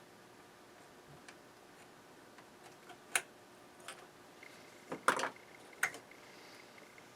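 A few sharp, scattered clicks and taps of a small glass fuse and multimeter probes being handled while the fuse is pulled and checked, the loudest about five seconds in.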